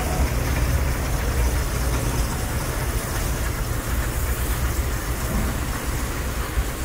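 Engine of a narrow-gauge passenger railcar running as it rolls slowly past: a steady low rumble.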